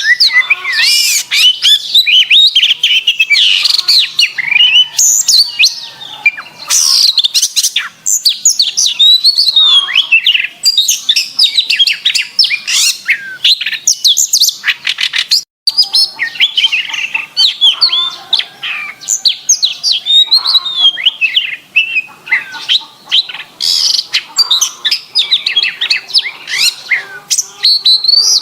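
Domestic canary singing continuously: rapid, clear trills and chirps with short pauses between phrases. The song cuts out for an instant about halfway through.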